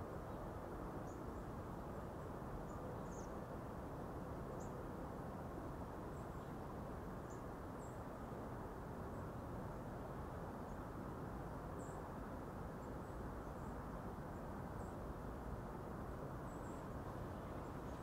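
Steady low outdoor background rumble and hiss, with faint, short, high-pitched bird chirps scattered irregularly about once a second.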